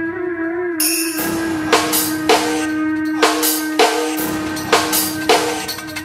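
Dance music: a held drone note, wavering slightly at first, with a drum beat coming in about a second in and sharp hits about twice a second.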